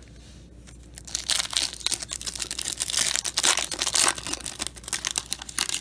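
The plastic wrapper of a 2019 Topps Chrome baseball card pack being torn open and crinkled, starting about a second in.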